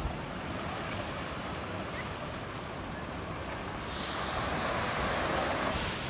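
Ocean surf washing in over rocks and sand, a steady rush of breaking water that swells louder from about four seconds in.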